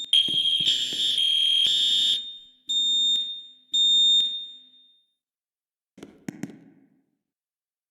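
School fire alarm sounding a steady high-pitched tone during an alarm test; it cuts off about two seconds in, then gives two short blasts about a second apart before going quiet. A few faint knocks follow near the end.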